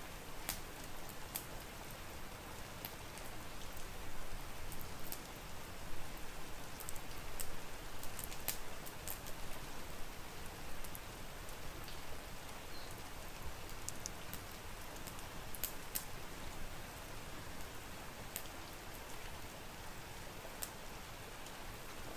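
Steady rain hissing evenly, with scattered sharp pops and crackles from a wood fire now and then.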